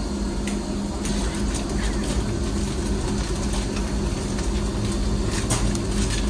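Steady low rumble and hum inside a train passenger coach, with a few faint crackles from a snack packet being opened.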